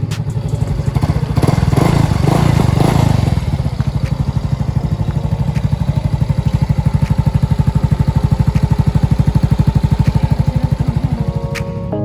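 Yamaha Mio Soul i 125 scooter's single-cylinder four-stroke engine running through an Apido Version 3 aftermarket exhaust pipe, given a brief throttle blip about a second in, then settling to a steady, pulsing idle.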